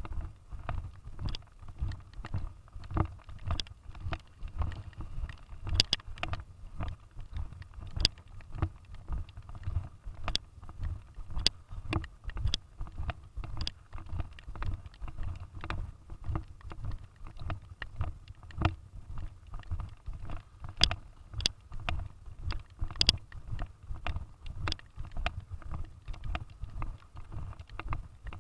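Footsteps of someone walking along a wet gravel path, about two steps a second, with low knocks and rubbing of a hand-held camera jostled at each step.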